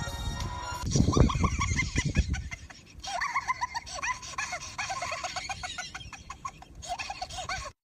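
A person laughing hard in a long run of quick, high-pitched cackles that starts about a second in and cuts off suddenly near the end, with background music at the start.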